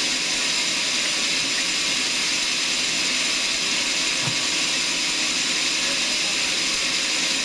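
Sawmill saw running steadily, a constant high hiss with faint steady whining tones.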